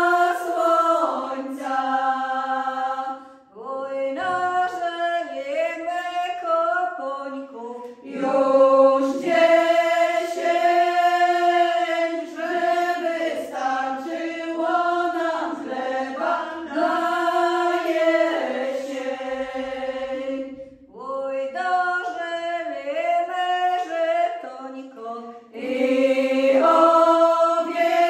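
Women's vocal ensemble singing an old Podlasie folk song a cappella, several voices together in long sung phrases with short breaks between them.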